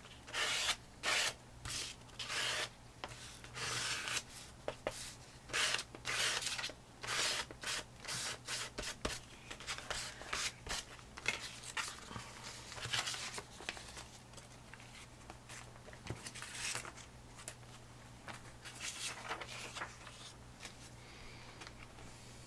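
Plastic scraper tool dragged in short, repeated strokes across a paper book page, spreading a thin layer of green paint, followed by sparser rustling and scuffing of paper as the page is handled.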